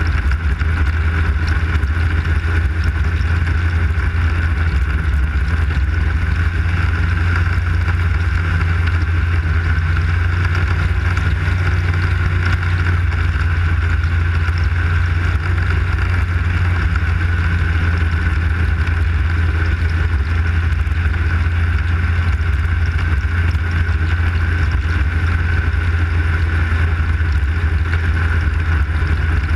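Arctic Cat snowmobile running at a steady cruising speed on a groomed trail, its engine and track making an even, unbroken drone with a strong low hum and a higher whine over it.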